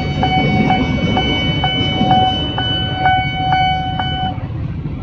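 A railway level-crossing alarm rings about two strokes a second over the rumble of a passing KRL commuter electric train. The alarm cuts off about four seconds in, as the train clears the crossing.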